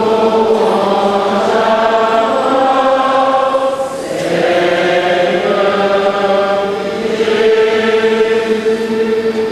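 Choir and congregation singing a slow chant in long held notes, with a short break for breath about four seconds in: the acclamation sung before the Gospel reading at a Catholic mass.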